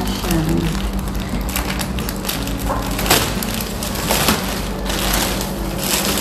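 Plastic packaging crinkling and rustling in a run of small crackles as items are unwrapped by hand, over a steady low hum.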